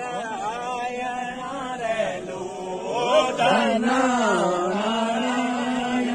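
A group of men singing a Nanda Devi Raj Jat folk song together in a chanting style, with long held notes. The singing grows louder about three seconds in.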